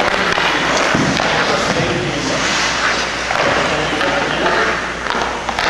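Ice-rink noise: indistinct voices, with skates and goalie pads scraping over the ice.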